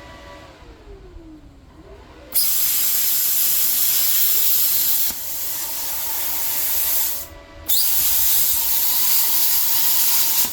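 Plasma cutter cutting rusty frame steel: a loud, steady hiss of the torch's air and arc starts about two seconds in, drops briefly and stops for a moment near three-quarters of the way through before starting again. Before the cut, a faint whine falls in pitch and dies away.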